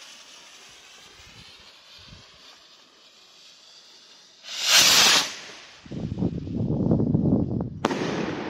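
Herlat 'Ballrakete' shell rocket (68 g net explosive mass): the fuse hisses faintly for about four seconds, then the rocket launches with a loud, short whoosh. A low rumble follows, and the shell bursts with a sharp bang near the end.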